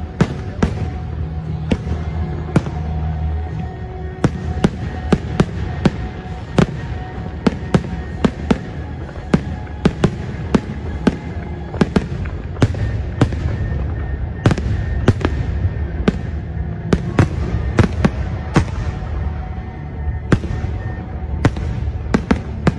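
Fireworks display going off: a rapid, irregular string of sharp bangs, roughly one to three a second, over a steady low rumble.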